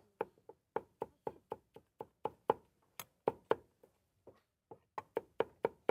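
Quick, uneven knocking on a wooden cutting board, about three or four knocks a second, with a short pause about three and a half seconds in: food being chopped or dough being worked at a food stall.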